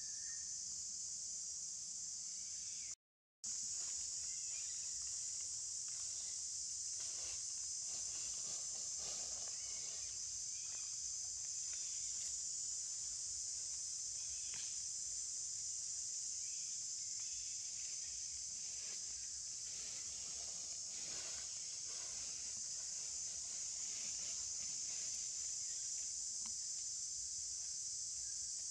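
Steady high-pitched drone of insects, unbroken apart from a brief cutout about three seconds in, with faint scattered rustles beneath it.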